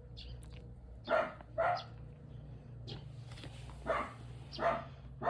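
A dog barking: short barks in pairs about half a second apart, two about a second in and two more near the end.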